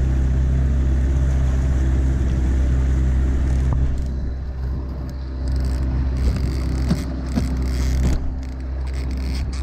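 Boat's outboard motor running steadily at trolling speed, a low even drone. A few light knocks and scrapes come in the second half.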